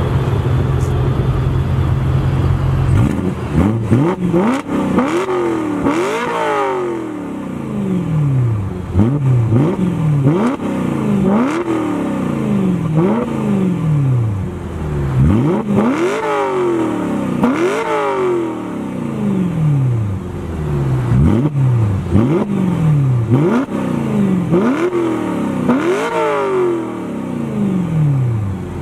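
BMW E90 M3's 4.0-litre V8, through an exhaust fitted with cutouts ahead of the muffler, idling and then, about three seconds in, blipped in a long series of quick free revs, each rising sharply and falling back, about one a second.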